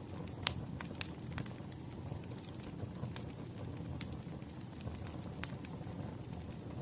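Wood logs burning in a fire: a steady low rumble of flames with sharp, irregular crackles and pops, the loudest about half a second in.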